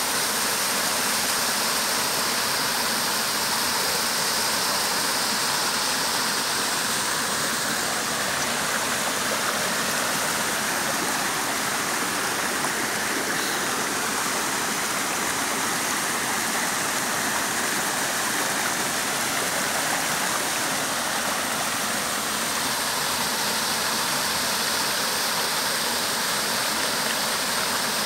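Water of a rocky mountain stream and small waterfall rushing over boulders, a steady, unbroken rush.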